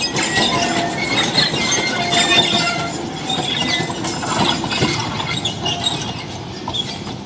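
Loaded narrow-gauge sugarcane wagons rolling along the track, with short wheel squeals and clanking. The sound fades slowly as the train moves away.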